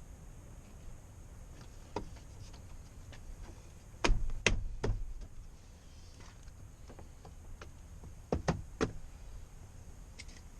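Sharp knocks and clatters of hard parts being handled: one faint knock about two seconds in, a quick run of three or four loud ones about four seconds in, and two or three more near the end, with small clicks between.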